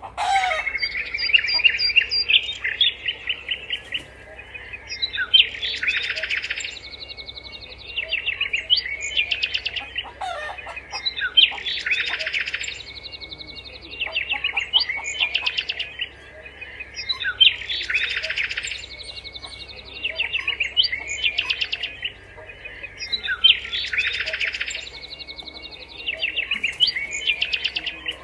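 Songbirds chirping and trilling in high, rapid phrases, with the same sequence of calls recurring about every six seconds.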